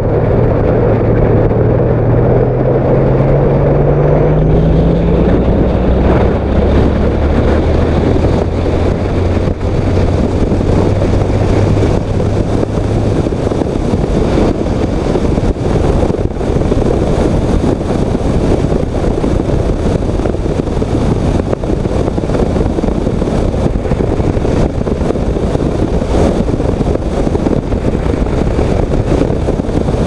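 Honda CTX1300 V4 motorcycle pulling away and accelerating, its engine note rising over the first several seconds and then holding steady, before loud wind noise buffeting the helmet-mounted microphone drowns it out. The uploader puts the wind noise down to riding with the modular helmet's chin bar up.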